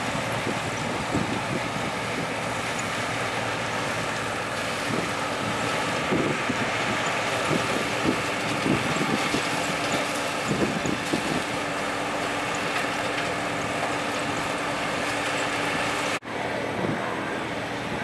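Oxbo Pixall corn harvester and the tractor pulling the cart running steadily at work, the machines picking corn and elevating ears into the cart. Near the end the sound breaks off for an instant and comes back slightly different.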